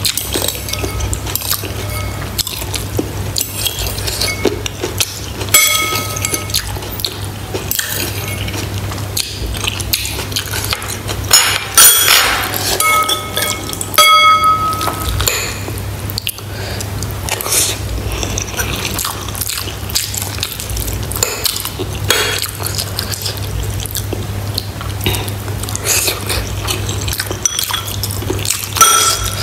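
Close-miked eating of pork bone broth with rice. A metal spoon scoops soup and clinks against ceramic bowls in short ringing taps, with liquid sounds between.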